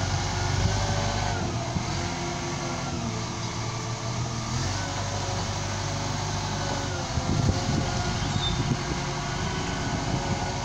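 Liebherr L554 wheel loader's diesel engine running under load as the machine drives and manoeuvres, its pitch rising and falling with the throttle, with a rougher, louder stretch about seven seconds in.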